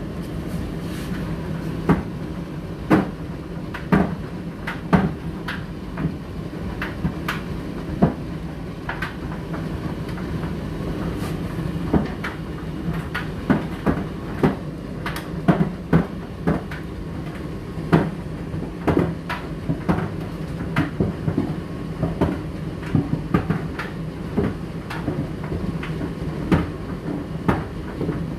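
Indesit IDC8T3 condenser tumble dryer running: a steady motor hum with frequent irregular knocks and clicks as the load tumbles in the drum.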